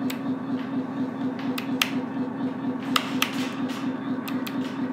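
Simulated diesel engine idling from the RC truck's onboard sound module: a steady, evenly pulsing hum. A few sharp clicks sound over it, in pairs about a second and a half in, around three seconds in, and again near the end.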